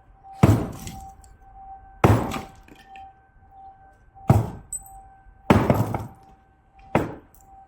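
Steel bar striking cooled, solidified furnace slag: five sharp impacts about one to two seconds apart, breaking the slag open. A faint steady hum runs underneath.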